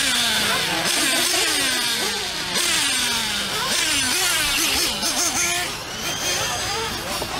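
Several nitro-powered RC off-road buggies running laps, their small engines revving up and falling back again and again, overlapping one another.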